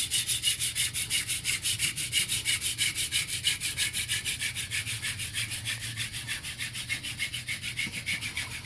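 Hand-drill friction fire: a prickly lettuce spindle twirled between the palms, grinding in its socket in a western red cedar hearth with a fast, even rhythm of rasping strokes that ease off slightly near the end. The set is already smoking, the drilling grinding out hot dust toward a coal.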